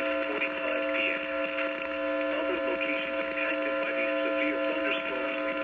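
Weather-radio broadcast received on a weak signal: a steady buzzing hum with a garbled, unintelligible voice underneath.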